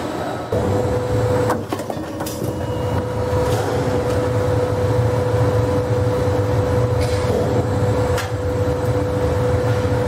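Sheet-metal roll forming line running: a steady machine hum with a constant tone, broken by a few sharp metallic knocks from the punching and cut-off stations.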